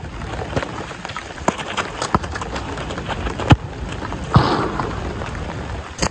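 Sharp thuds of a football being kicked and footfalls on a soaked artificial turf pitch, over a steady wet hiss: several knocks, the loudest about three and a half seconds in, with a short splash just after four seconds.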